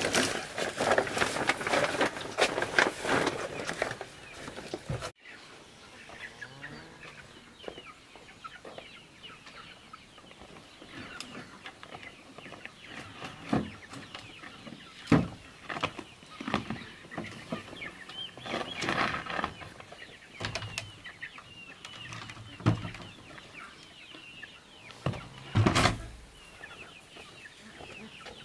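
A woven plastic sack rustling and crinkling as it is handled, for about five seconds. Then chickens clucking, with many short chirping calls and a few short knocks, the loudest near the end.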